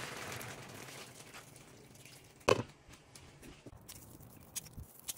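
Green curry simmering and bubbling in a pan, fading over the first two seconds. A single sharp knock about two and a half seconds in, then a few faint clicks.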